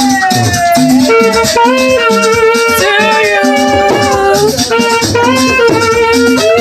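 Live party band music: a sustained, gliding melody line, likely saxophone, over drums and a steady shaker rattle, with some singing.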